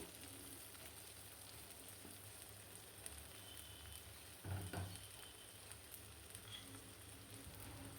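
Faint sizzle of hog plum pieces frying in oil in a kadai, with one soft knock about four and a half seconds in.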